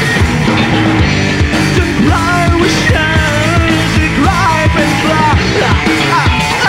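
Live rock band playing: electric guitars, bass and a drum kit keeping a steady beat, with a male singer's voice carrying a wavering sung line through the middle.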